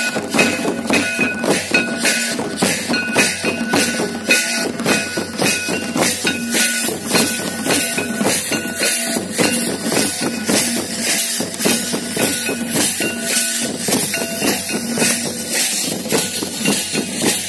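A troupe of stick-beaten folk drums and small brass hand cymbals playing a fast, steady dance rhythm, with the pattern repeating about every two seconds and a few held ringing notes over it.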